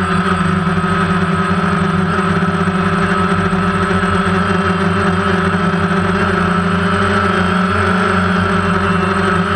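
Multirotor drone's motors and propellers heard from its own onboard camera: a loud, steady whir with several fixed pitches that does not change.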